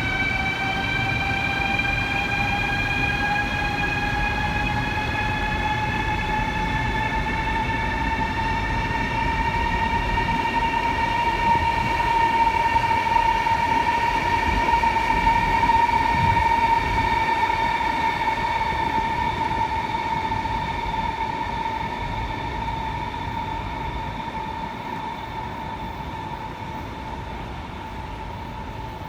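A train running, with a steady whine that rises in pitch over the first ten seconds and then holds, over a low rumble that swells midway and then slowly fades.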